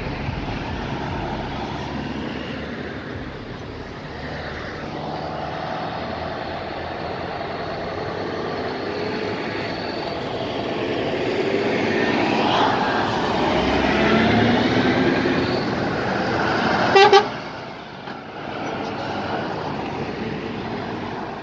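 Heavy trucks driving past one after another, their diesel engines rising in pitch as they pull through. About three-quarters of the way through, one short, loud horn blast.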